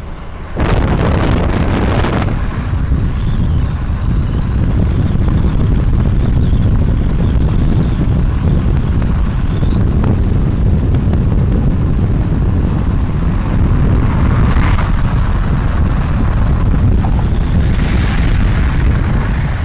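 Loud, steady wind buffeting on the microphone of a camera carried on a vehicle driving at speed, with the vehicle's running noise mixed in. The rumble comes in abruptly about half a second in.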